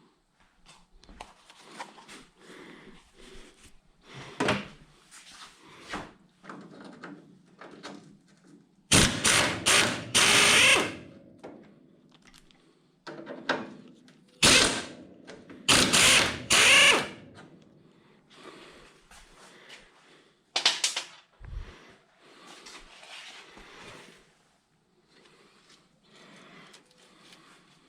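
Power tool, likely an impact wrench, run in several short loud bursts in the middle stretch while loosening old bolts. Quieter clinks and tool handling come between the bursts.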